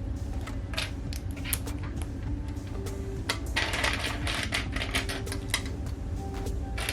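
Plastic LEGO bricks clicking and clattering as pieces are handled and pressed together, with a denser rattle of pieces about three and a half seconds in.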